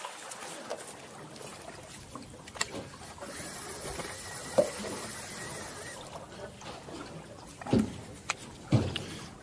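Water lapping and slapping against the hull of a drifting aluminum fishing boat, with a hiss that swells for a few seconds in the middle and several sharp knocks, the loudest two near the end.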